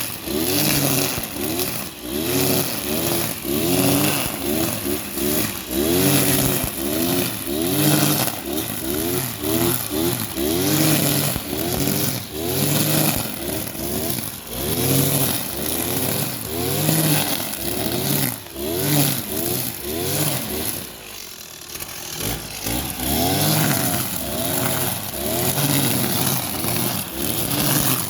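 Kawasaki TJ45E two-stroke brush cutter engine revving up and down over and over, about twice a second, as its nylon-line trimmer head cuts grass. The engine drops back briefly about three-quarters of the way through, then revs up again.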